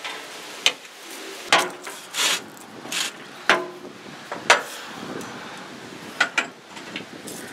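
A steel hand tool knocking and scraping against a rusty sheet-metal cab panel, about nine sharp clanks at uneven intervals.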